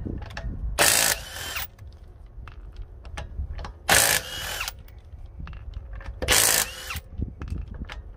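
Ridgid cordless impact wrench hammering the lug nuts loose on a car's rear wheel, in three short bursts each under a second long, a few seconds apart.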